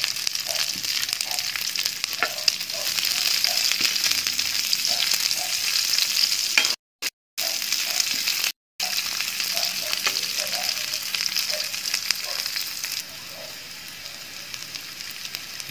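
Sliced onions and garlic sizzling in hot oil in a metal wok beside fried pork bits, with a metal spatula scraping and stirring against the pan. The sound cuts out briefly three times around the middle, and the sizzle drops quieter near the end.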